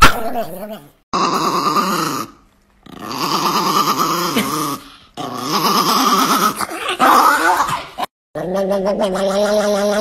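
Chihuahua vocalizing: long, wavering growl-like 'owa' sounds, in four stretches with short silent breaks between them.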